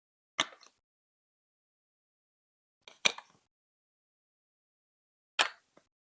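Three sharp clacks of hard plastic Lego Duplo bricks, each followed by a short rattle and spaced about two and a half seconds apart. Typical of bricks being set down and pressed together.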